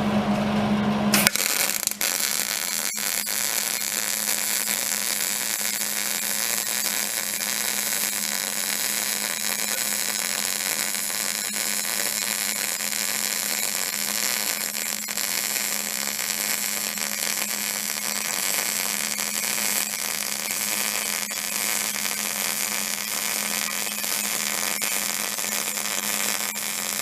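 Arc welding: a steady crackling sizzle of the welding arc, which strikes about a second in and burns on without a break, over a steady hum. The welder is drawing its power from a woodgas-fuelled inverter generator.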